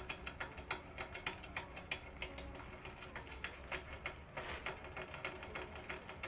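Motorcycle roller chain clicking and clattering link by link as it is pulled through by hand and fed around the rear sprocket, with irregular clicks several times a second.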